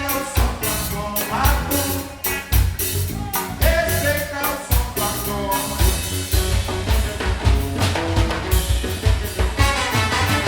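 Live band playing a song with drum kit and percussion keeping a steady beat, with a voice singing over roughly the first half.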